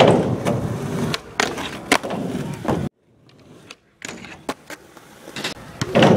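Skateboard wheels rolling on concrete, with sharp clacks of the board. The sound drops out abruptly for about a second around three seconds in, then rolling and clacks resume and grow louder near the end.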